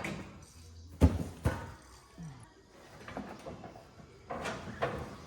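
Metal knocks and clanks from work on a combine header: two sharp loud strikes about a second in, half a second apart, then lighter scattered knocks and rattles.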